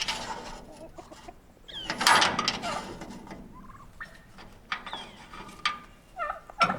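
Domestic poultry calling: a string of short calls and clucks, loudest about two seconds in.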